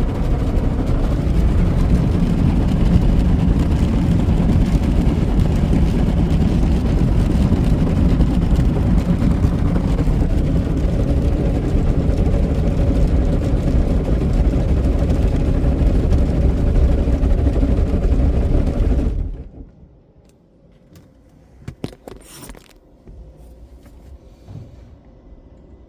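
Broadway in-bay car polisher running its buffers over the car, a loud steady low drone heard from inside the car. It stops suddenly about nineteen seconds in, leaving a few faint clicks.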